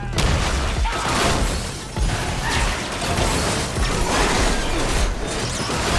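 Staged SUV crash: a sudden heavy impact at the start, then continuing crunching, shattering and scraping as the vehicle rolls over and slides on its roof along the asphalt.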